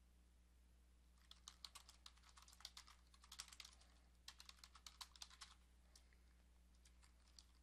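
Faint typing on a computer keyboard: a quick run of keystrokes from about a second in until about five and a half seconds, then a few scattered taps.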